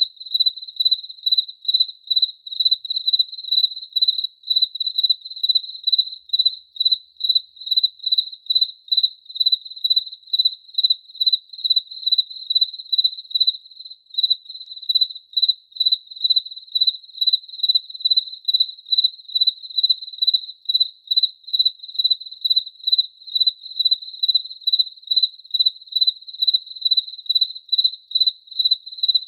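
A cricket chirping in a steady, even rhythm, about three high-pitched chirps a second.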